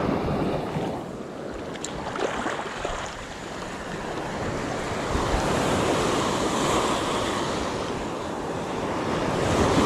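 Small ocean surf breaking and washing up the sand, a steady rushing wash that swells and eases every few seconds, with wind buffeting the microphone.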